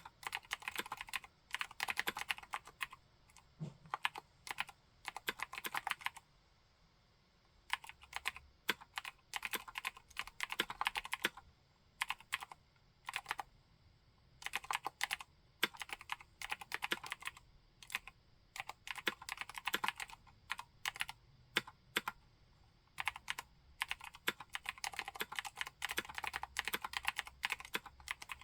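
Typing on a 60% mechanical keyboard with Cherry MX White switches and MT3-profile keycaps: fast runs of keystrokes in bursts of a few seconds, broken by short pauses.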